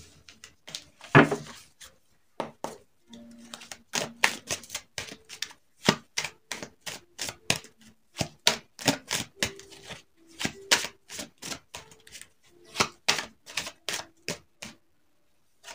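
A deck of oracle cards being shuffled by hand: a quick, uneven run of sharp card slaps and clicks, several a second, with a louder rustle about a second in.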